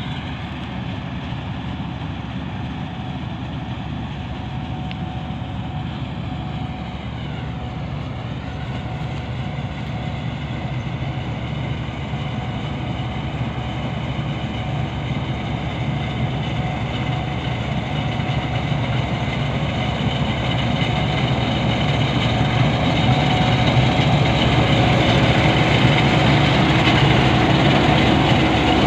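Combine harvester cutting rice: its engine and cutting and threshing machinery run steadily, growing louder as the machine comes up close.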